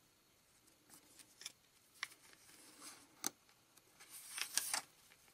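Cardboard trading cards being handled: a few faint clicks and taps of card stock, then a short rustle of a card sliding off the stack near the end.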